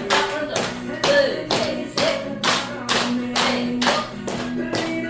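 A steady beat of sharp hand claps, about two a second, over music with a sung melody.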